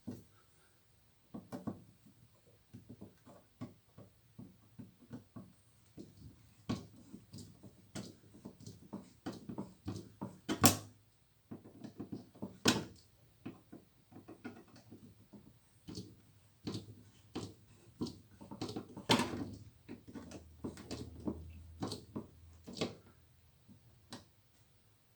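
Irregular clicks, taps and knocks of tools and parts being handled on a workbench, with a few louder knocks among them.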